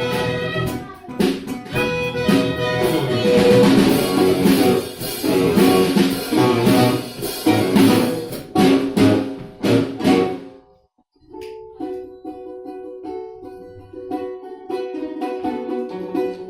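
Live instrumental ensemble music: a loud, rhythmic passage with plucked strings and drums that breaks off about two-thirds through, then a quieter section with held notes.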